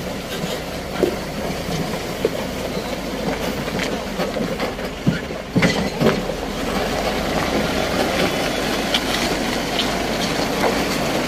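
Caterpillar 130G motor grader's diesel engine running steadily as its blade pushes and spreads loose gravel along the road, with a few sharp knocks around the middle.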